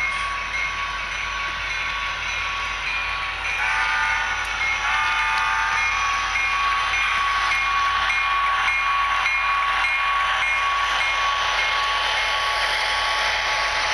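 HO scale model BNSF diesel locomotive's sound system sounding its horn in a couple of multi-note blasts about four seconds in, with its bell ringing in steady repeated dings, as the model train rolls past with a hiss that grows louder.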